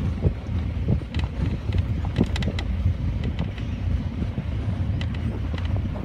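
Open safari jeep driving along a rough forest track: a steady low engine and road rumble, with frequent short knocks and rattles from the vehicle body.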